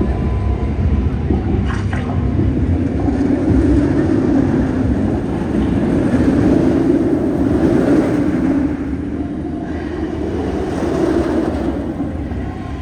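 Nemesis inverted roller coaster running along its track, heard from on the ride as a continuous deep rumble with a rush of air. It swells through the middle and eases near the end.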